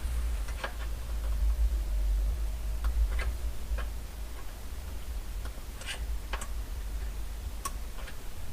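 Small plastic clicks and taps at irregular intervals, about a dozen in all, as a retaining clip is worked onto a replacement dashboard trim bezel, over a low rumble.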